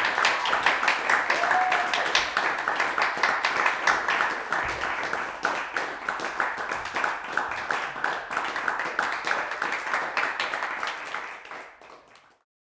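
Small audience applauding, with a short whoop about a second and a half in; the clapping fades out near the end.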